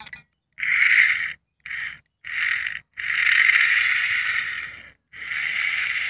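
Small DC motor and gearing of a homemade wired remote-control car whirring in stop-start spurts as it is switched on and off. There are five spurts of uneven length, the longest about two seconds, each cutting off dead.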